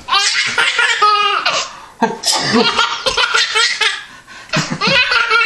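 A nine-month-old baby boy laughing hard, in three bouts of breathy belly laughs.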